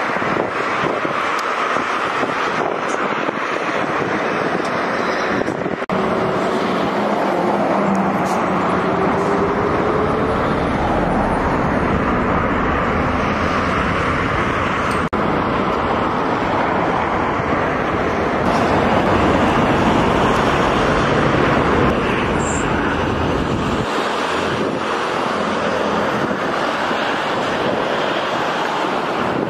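Wind buffeting the microphone over the steady road and engine noise of a moving car, with a faint rising engine note about a quarter of the way in. The deep rumble lessens near the end.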